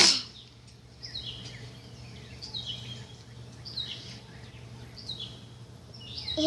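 A bird chirping in the background: short, falling chirps repeated about every second and a half, over a faint low steady hum. A sharp click or knock right at the start is the loudest sound.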